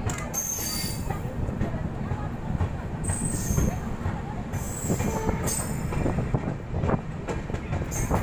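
Passenger coach rolling slowly along a station platform: a steady rumble of wheels on rail, broken about five times by short high-pitched wheel squeals, with a few sharp clicks.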